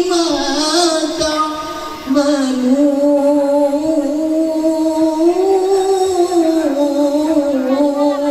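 A solo voice singing a slow melody in long held notes that bend and slide with ornaments, with a brief pause for breath about two seconds in.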